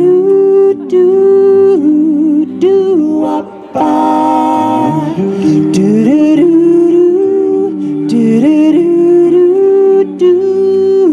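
Four-part male a cappella barbershop quartet singing a slow, wordless introduction of held chords into microphones, the voices moving together from chord to chord, with a fuller, brighter chord held about four seconds in.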